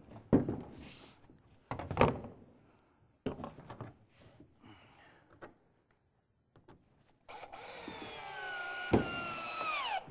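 Knocks and clunks of handling on wooden panels, then, about seven seconds in, a cordless drill driving a screw into the wood for nearly three seconds, its whine dropping in pitch as it slows near the end.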